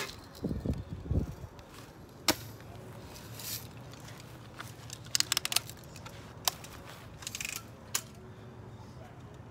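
A BB rifle fires with one sharp crack right at the start, followed by a few low thumps. Scattered smaller clicks and rattles follow as the BB rifles are handled, including a quick run of clicks about five seconds in.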